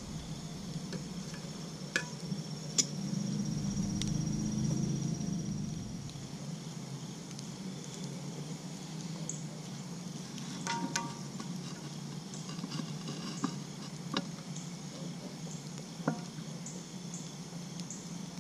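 Wood campfire crackling with scattered sharp pops and clicks, over a steady background of insects chirping. A low rumble swells and fades between about three and six seconds in.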